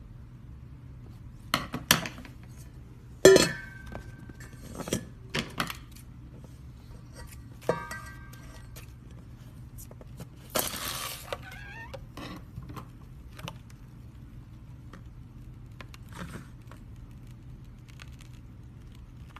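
Handling and cutting a slime-filled stress ball: scattered clicks and knocks, and two sharp clinks with a brief ringing tone about 3 and 8 seconds in, like a blade or tool striking a hard dish. A noisy rasp lasting about a second comes roughly 11 seconds in.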